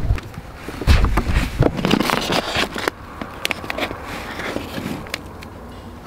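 Handling in an open YETI hard cooler: scrapes, knocks and crackling plastic as a wrapped fish tray is lifted out, busiest in the first three seconds and quieter after.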